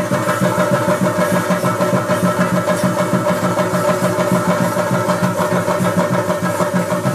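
Chenda drums beaten in a fast, even rhythm, with cymbals clashing and a held tone sounding above them, as they accompany a Theyyam dance.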